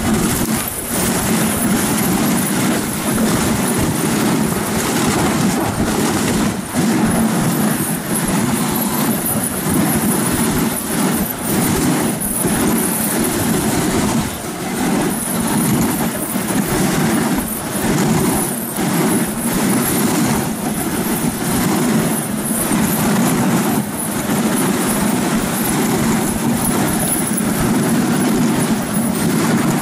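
Dog sled running over snow: a steady, loud rushing and scraping of the runners and the moving team, with brief dips here and there.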